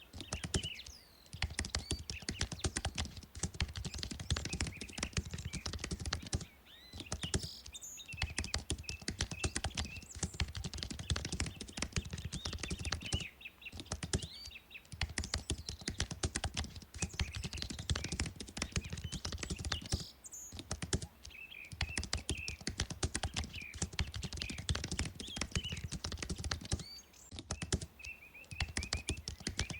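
Rapid typing on a computer keyboard, a dense run of keystroke clicks broken by a few short pauses.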